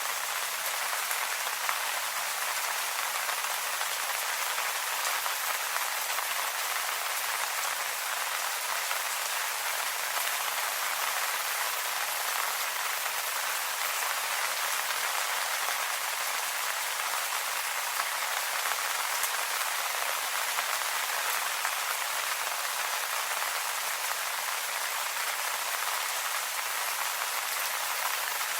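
Steady rain falling on leaves: an even hiss of many small drops pattering, with no change in strength.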